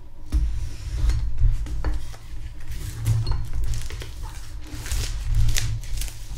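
Kitchen knife slitting and scraping the plastic shrink-wrap on a cardboard box, with irregular crackling of the film as it is pulled back, over a low rumble of handling on the box.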